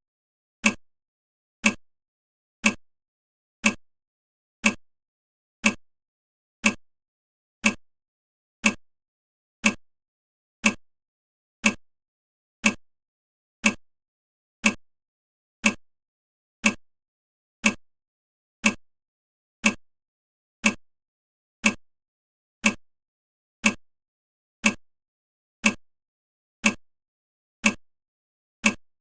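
Countdown timer's clock-tick sound effect: one short, sharp tick every second, evenly spaced.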